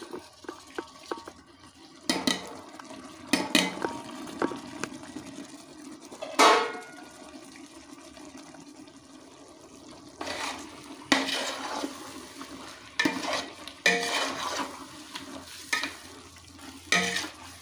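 Chicken and masala paste being stirred in a large cooking pot, the spoon scraping and knocking against the pot now and then over a steady frying sizzle. The masala is being fried until its raw smell is gone.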